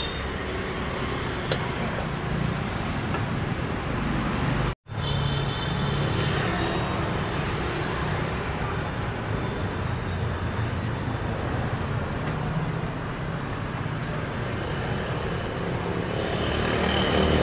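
Steady street traffic noise from passing vehicles, cutting out for an instant about five seconds in.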